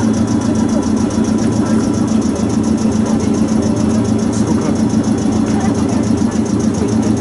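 Steady low hum of an idling vehicle engine, with a fast, even high-pitched pulsing over it.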